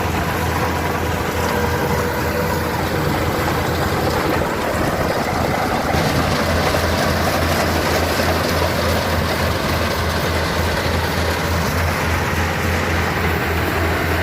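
Rice combine harvester running: a steady engine drone with a strong low hum over a broad mechanical noise, the machine working while it fills the rice bags.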